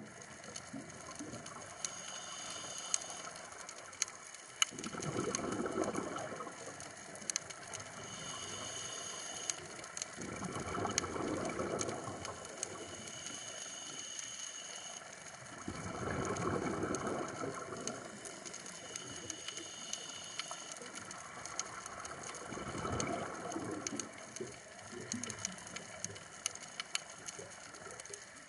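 A scuba diver breathing through a regulator underwater: four bursts of exhaled bubbles, about every six seconds, with a thin hiss of inhalation between them. Scattered sharp clicks run throughout.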